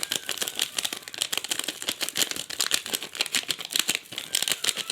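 Crinkling and rustling of an instant soup packet being handled and emptied into a bowl, a dense run of small crackles and clicks.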